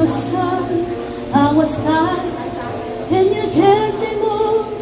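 Woman singing a slow ballad over an instrumental backing, in phrases with notes that slide up into held tones.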